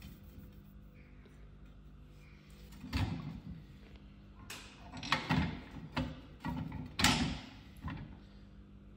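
Metal tow bar guard plate knocking and clunking against the tow bar and ball mount as it is fitted by hand: a string of sharp knocks from about three seconds in, the loudest near seven seconds.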